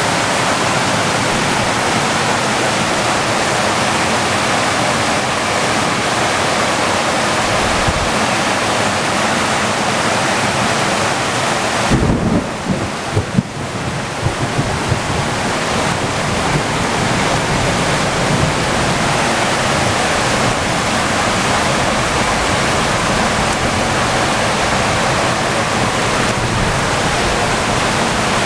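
Flash-flood water rushing steadily, a dense, loud, even noise. About twelve seconds in, low thumps and rumbling come through for a couple of seconds while the hiss dips.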